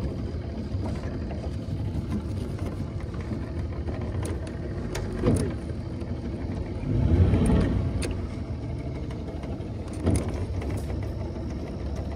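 Boat motor running steadily at low speed, with a rise and fall in revs about seven seconds in.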